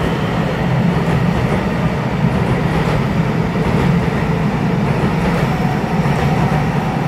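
Taiwan Railway EMU900 electric commuter train running out along an underground station platform: a steady, loud low rumble of its wheels and running gear.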